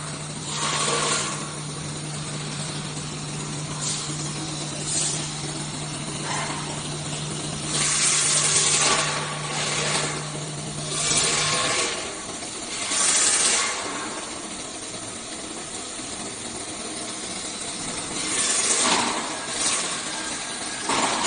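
Automatic tool changer CNC router running its tool-length setting cycle, changing and measuring tools in turn. A steady low hum runs until about halfway through and then stops, and short noisy bursts come every few seconds as the changer works.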